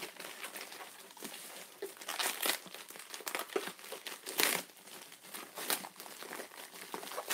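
Packaging of a French manicure set crinkling and crackling as hands handle it and pull at it, irregular and uneven, loudest a little past the middle.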